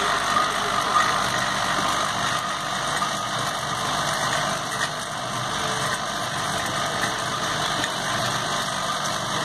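Vibratory bowl feeder running steadily, a continuous rattle of plastic caps jostling in the vibrating bowl and climbing its spiral track over a low hum from the drive.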